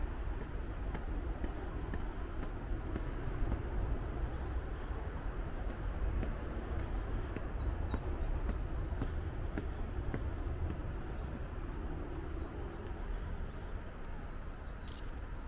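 Brief high bird chirps every few seconds over a steady low rumble of outdoor background noise.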